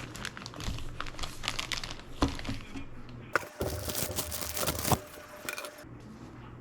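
Crinkling and rustling with scattered sharp clicks, as of something crinkly being handled and crumpled by hand. A denser, louder stretch of rustling starts about halfway through and stops a second or so before the end.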